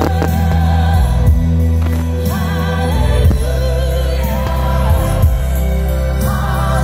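Music: a song with a sung vocal line wavering over a heavy, steady bass.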